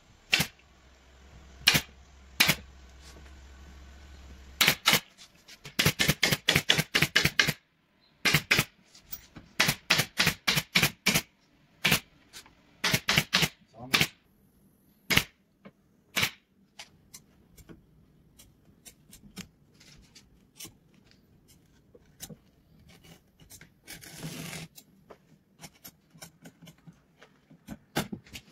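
Sharp clicks or taps, some single and some in quick runs of about seven or eight a second, thinning out to scattered lighter ticks in the second half.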